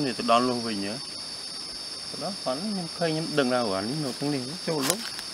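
Forest insects keeping up a steady, high-pitched drone.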